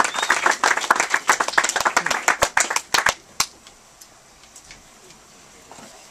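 Audience clapping that thins out to a few last scattered claps about three seconds in, then stops, leaving faint room noise.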